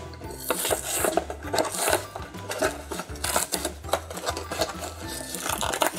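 Plastic packaging and cardboard rustling and crinkling in irregular bursts as a toy box is opened and the clear plastic tray pulled out, over background music with a steady low beat.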